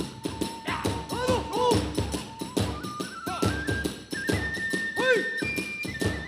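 Kagura hayashi accompaniment: fast, driving drum strokes and clashing hand cymbals, several a second, under a transverse bamboo flute holding and stepping between high notes.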